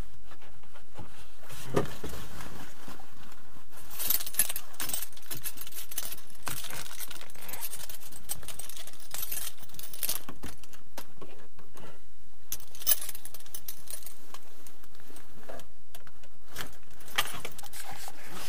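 Car keys jangling, with scattered clicks and rustles of handling in the car's cabin.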